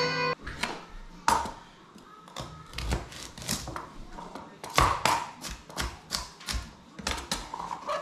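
Knife chopping unpeeled carrots on a cutting board: a string of irregular sharp chops and knocks, about two a second.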